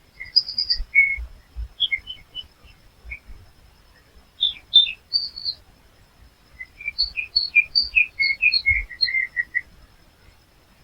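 Small songbirds chirping and singing in quick strings of short notes, in three bursts: near the start, around the middle, and a longer run in the second half. A faint steady high tone runs underneath.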